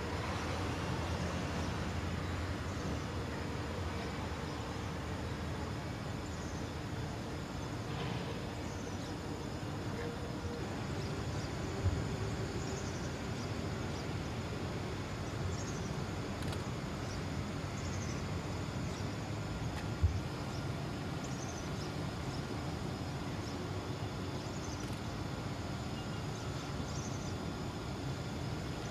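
Factory-floor machinery running with a steady hum and hiss, with two sharp clunks, one about twelve seconds in and one about twenty seconds in.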